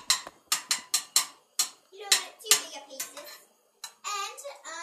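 A utensil knocking against cookware in a quick, even series of about four sharp knocks a second, which thin out after a second and a half. From about two seconds in, a person's voice is heard without clear words.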